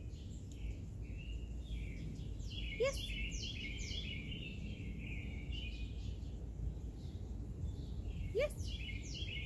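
Wild birds chirping and singing in the background over a steady low outdoor rumble. Two quick rising whistles come about three seconds in and again near the end.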